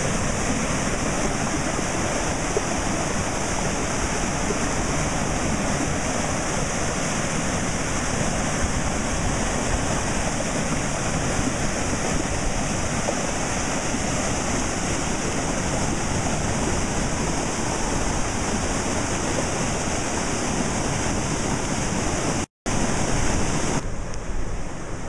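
Floodwater from a swollen creek rushing steadily over and around a submerged bridge: a continuous loud rush of water. It cuts out for a moment near the end.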